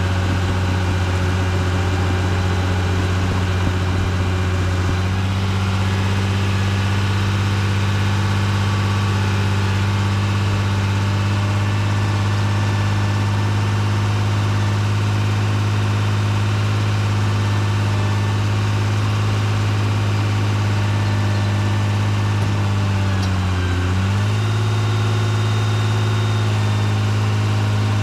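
Caterpillar D3C LGP dozer's diesel engine running steadily, heard from the operator's seat. Its pitch steps up slightly about five seconds in, then sags briefly near the end before picking back up.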